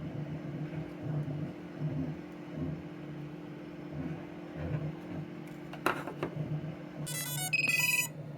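FPV drone's brushless motors playing the ESC startup tones as it powers up: a quick run of electronic beeps at several pitches near the end, just after a sharp click. A low steady hum runs underneath.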